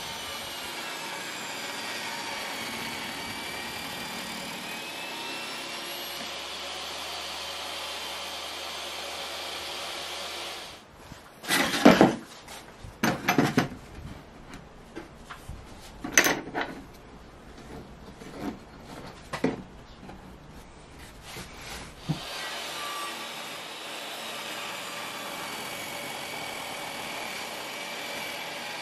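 Table saw running as a pine block is fed into the blade on a crosscut sled for repeated cuts. About ten seconds in, the steady running gives way to some ten seconds of loud, irregular cutting noise, then the steady running returns.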